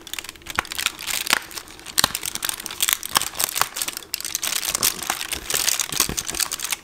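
Fingers picking and tearing at a foil-lined cardboard door of a Hotel Chocolat advent calendar and crinkling the foil around the chocolate inside: a dense run of crackles and sharp snaps.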